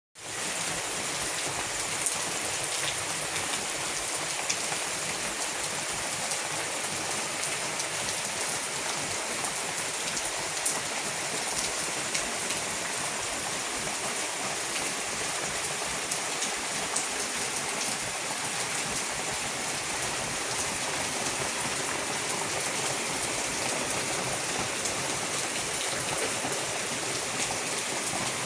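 Steady heavy rain pouring down: a dense, even hiss with a few sharper drop hits standing out now and then.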